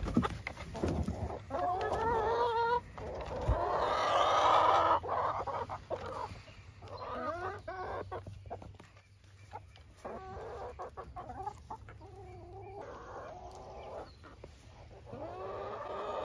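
Flock of chickens clucking and calling, a string of separate calls with short pauses between them; the loudest and longest call comes about four seconds in.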